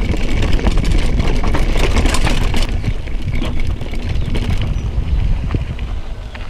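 Mountain bike ridden over a rough trail: wind rumble on the microphone with the bike clattering and rattling over the ground, growing quieter near the end.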